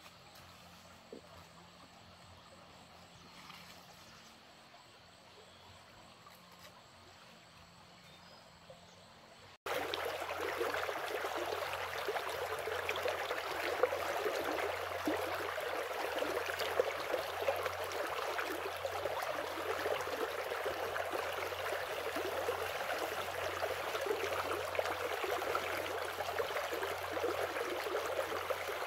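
Quiet outdoor ambience with a few faint clicks, then, from an abrupt cut about ten seconds in, a steady loud rush of running stream water.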